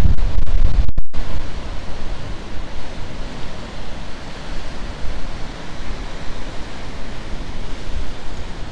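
Strong wind buffeting the microphone with a low rumble, over sea surf surging and washing around rocks. The wind is loudest in the first second or two, and the sound cuts out for a moment about a second in.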